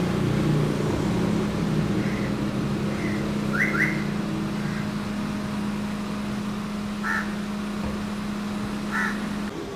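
Street ambience: a steady low hum that stops near the end, with a few short bird calls over it, including a quick pair a little under four seconds in.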